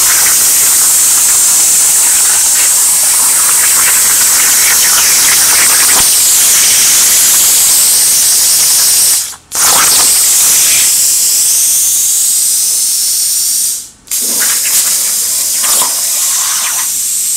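Hypertherm plasma torch on a CNC plasma table cutting 16 gauge mild steel, a loud steady high hiss. It cuts out briefly twice, about halfway and three-quarters of the way through, and comes back somewhat softer after the second break.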